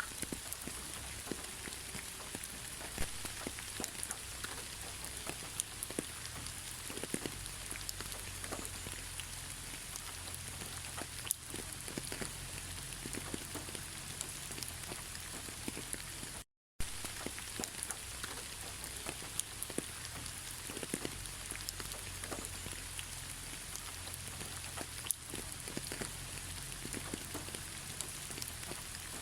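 Steady rain falling on a surface, an even hiss dotted with the ticks of individual drops. About halfway through the sound cuts out to silence for an instant and then resumes.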